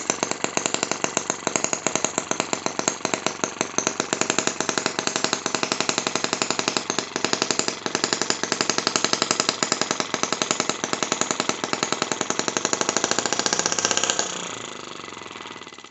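Miniature ET5 (M12) model engine running steadily with a rapid, regular beat of sharp firing pops while driving a small propeller. About fourteen seconds in it dies away, which the owner thinks may be from running out of gas.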